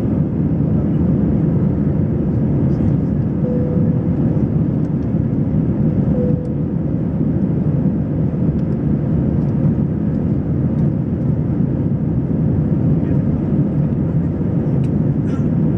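Airbus A320 cabin noise in flight: a steady, loud rumble of the engines and airflow heard from a seat inside the cabin, with a faint steady hum and a slight drop in level about six seconds in.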